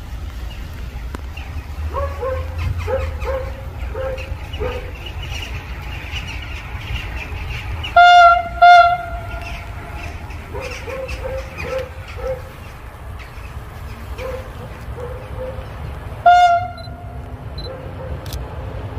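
Locomotive horn sounding two loud blasts in quick succession about eight seconds in and one short blast near the end, over the low rumble of a train approaching on the line.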